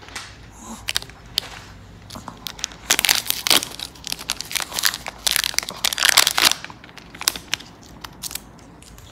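Plastic wrapper of a dog chew stick crinkling and crackling as it is torn open and handled, in uneven bursts with sharp clicks, loudest near the middle.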